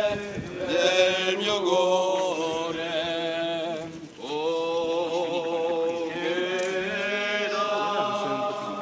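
A group of men chanting a slow processional hymn in long held notes, with a short pause for breath about four seconds in.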